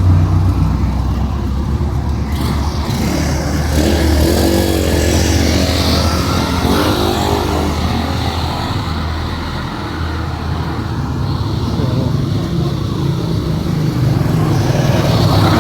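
A motor vehicle's engine running with a steady low drone, easing off slightly in the middle and picking up again near the end.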